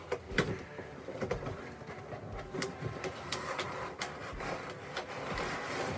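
Packaging being handled: crinkling and crackling plastic bubble wrap and cardboard as a boxed metal shield is worked out of its box, with scattered sharp clicks and pops.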